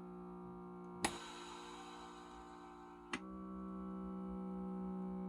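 Electric hand air massager running with a steady hum from its air pump, with a sharp click about a second in and another about three seconds in, each changing the tone as the air cycle switches.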